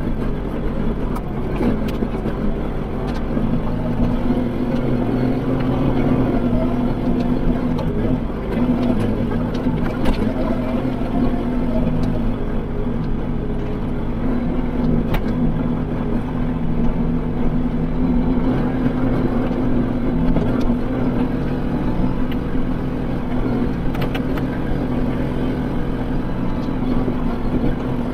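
Kubota L3560 tractor's four-cylinder diesel engine running steadily as the tractor drives, with a few light clicks and rattles.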